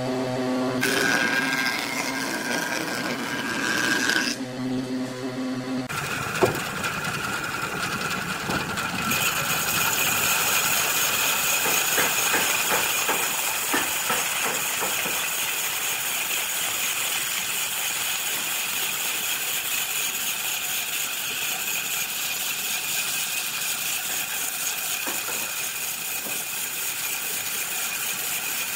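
Workshop power tools at work on wood. An electric motor hums for the first several seconds with a scraping noise over it; about six seconds in the hum stops and a steady grinding hiss takes over, turning brighter and hissier about nine seconds in.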